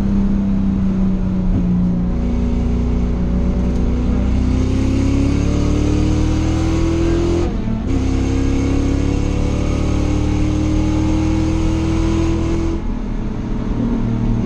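Race car engine heard from inside the stripped cockpit, pulling under throttle with its pitch climbing steadily. The note breaks briefly about halfway through for a quick upshift, then climbs again in the next gear and drops back as the throttle lifts about two seconds before the end.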